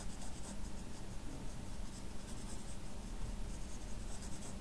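Drawing strokes on paper: a steady scratching of the drawing tool with many short strokes.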